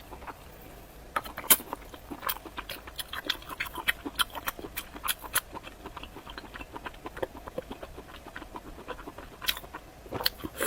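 A person chewing food close to the microphone, with many small, irregular wet mouth clicks and smacks.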